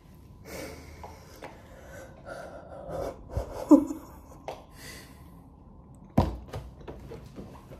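Stifled, breathy laughter and gasps amid small handling and eating noises, with one sharp thump about six seconds in.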